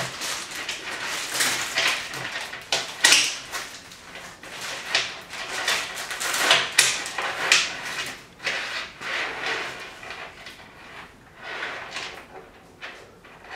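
Bicycle chain rattling and scraping in irregular bursts as it is handled and laid out, louder for the first half or so and thinning out toward the end.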